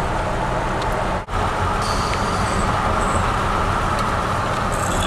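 Steady road noise of a vehicle driving along a highway, with a momentary dropout a little over a second in.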